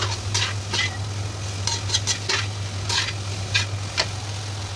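A metal spatula scraping and stirring chicken gizzards around a wok in irregular strokes over a light sizzle of frying, with a steady low hum underneath.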